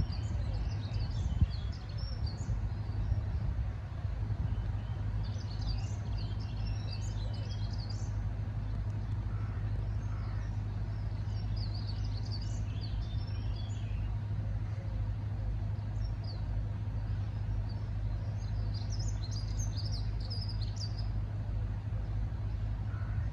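Small birds chirping and singing in several short bursts over a steady low rumble.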